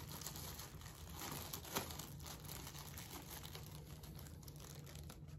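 Faint crinkling of a small plastic parts bag as a hand rummages in it for a screw, with one sharper click a little under two seconds in.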